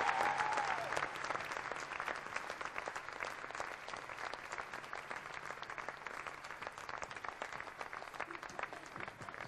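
Audience applause: many hands clapping, loudest at the start and then settling into steady clapping. A held high tone fades out about a second in.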